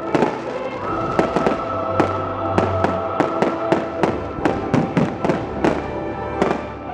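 Fireworks display: shells launching and bursting in quick succession, several sharp bangs a second, over music played with the show that holds long sustained notes.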